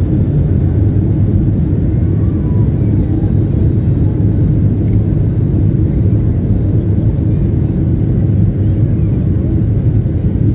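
Steady low rumble inside an airliner cabin while taxiing: the jet engines running at low power as the wheels roll along the taxiway.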